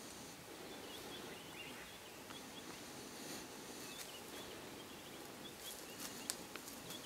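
Faint bush ambience with small birds chirping thinly now and then, and a few soft clicks near the end.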